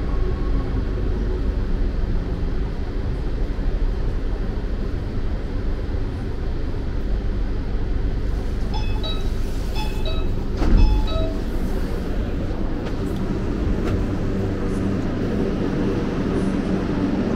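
Subway train running, a steady low rumble. A short series of electronic beeps sounds about nine to eleven seconds in, with a brief thump among them.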